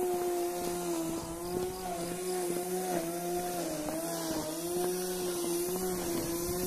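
A small motor running steadily, its pitch wavering slightly up and down.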